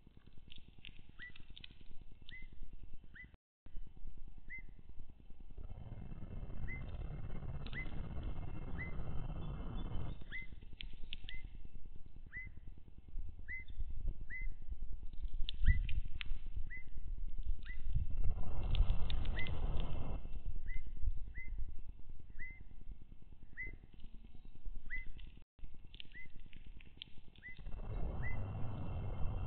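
Evening grosbeak giving short, high call notes over and over, about once a second. Three spells of low wind rumble on the microphone come and go, the first a few seconds in, one in the middle and one near the end.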